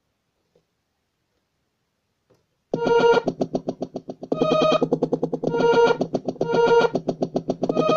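Kawai MS710 personal keyboard, silent at first, then from a little under three seconds in sounding a pitched voice that pulses fast and evenly, with brighter accented notes about once a second.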